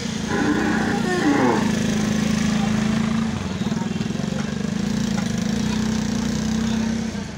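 A steady engine drone with a fast even pulse, and a brief call from a voice about half a second in.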